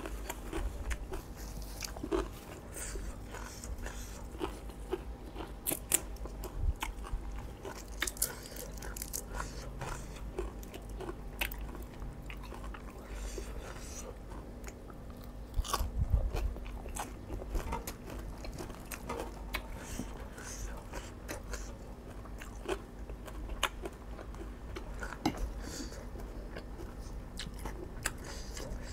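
Close-miked chewing and crunching: mouthfuls of raw shrimp salad and crisp raw vegetables being bitten and chewed, with a steady run of sharp crackly clicks and lip smacks, and a louder crunch about sixteen seconds in.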